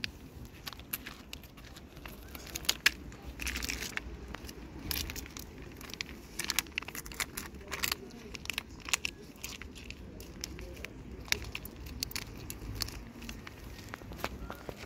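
Irregular crackling and clicking of a plastic Whiskas wet-food pouch being handled and squeezed, while a cat chews the food chunks off the ground.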